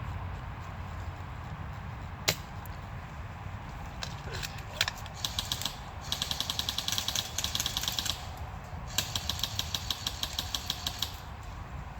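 Airsoft rifle firing: a couple of single shots, then two rapid full-auto bursts of about two seconds each, starting about six and nine seconds in.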